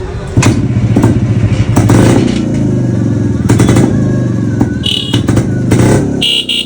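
1973 Jawa 250's single-cylinder two-stroke engine running and blipped on the throttle in short bursts, dropping away about six seconds in. A short high tone sounds twice near the end.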